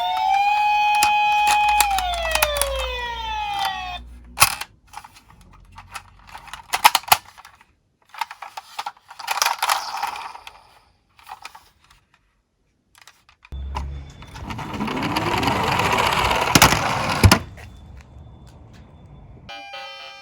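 Electronic siren of a toy ambulance holding its note, then sliding down in pitch and stopping about four seconds in. Scattered clicks and clatters of toy cars follow. From about 14 to 17 seconds comes a longer rolling rumble, ending in a sharp click, as a toy car runs down the slope.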